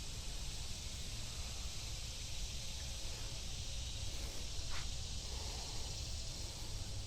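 Steady outdoor hiss along a wooded creek, with a low rumble underneath and one short falling chirp about five seconds in.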